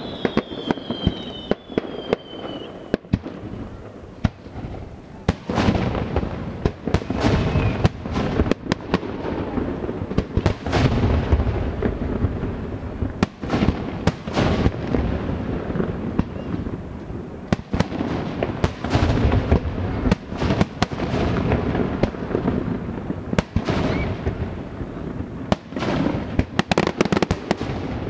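Aerial fireworks shells bursting: a long irregular series of sharp bangs, some in quick clusters, over a continuous low rumble. A falling whistle sounds in the first few seconds.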